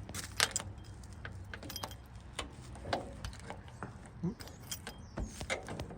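Keys jangling and irregular metal clicks and knocks as a locking cover on a mini excavator is unlocked and opened.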